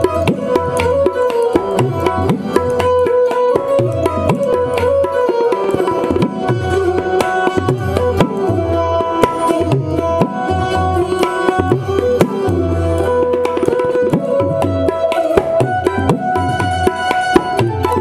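Tabla and a benjo (Indian keyed banjo, or bulbul tarang) playing an instrumental tune together. The tabla's deep bass strokes pulse under the benjo's plucked, twangy melody line.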